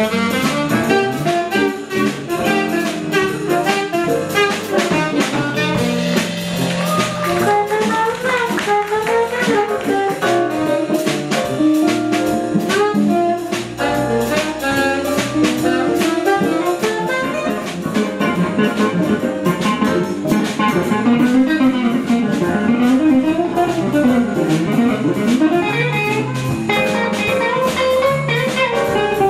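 Small jazz band playing live: a saxophone plays a melodic solo over drum kit, bass and keyboard, with electric guitar coming forward near the end.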